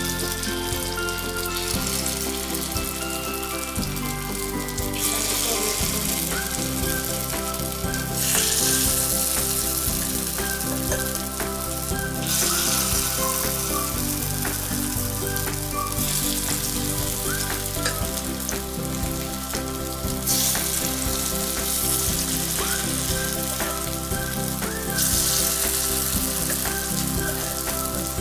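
Corn batter sizzling in hot oil in the cavities of a kuzhi paniyaram pan as spoonfuls are ladled in. The sizzle swells and eases several times as more cavities are filled, over steady background music.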